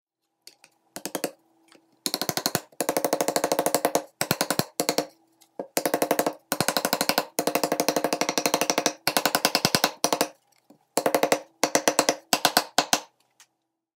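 Quick runs of light hammer taps, about nine a second, from a small brass-faced hammer knocking a dovetailed drawer's joints home in wood. They come in bursts with short pauses between, over a faint steady hum.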